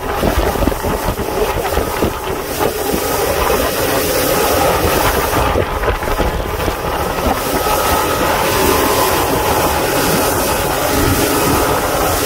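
Boat engine running steadily while the boat is under way, a continuous hum under wind rushing over the microphone and the hiss of the hull moving through the water.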